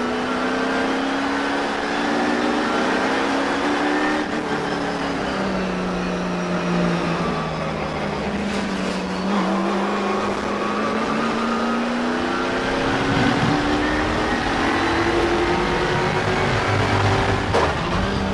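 Slot car's small electric motor whining, heard from a camera mounted on the car, its pitch rising and falling as the car speeds up on the straights and slows for the turns, over a steady rushing noise of the car running along the track.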